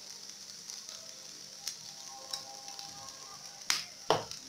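Grated potato and carrot sizzling steadily as they fry in oil in a nonstick frying pan, with a few sharp clicks, the two loudest near the end.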